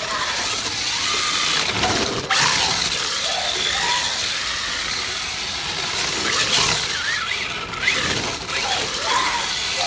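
RC drift car sliding on a futsal court floor, its tyres squeaking in many short, shifting chirps over a steady hiss.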